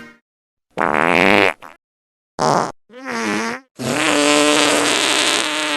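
A string of prank fart sound effects: a buzzy burst about a second in, two short ones, a wavering one around three seconds in, then a long drawn-out one near the end.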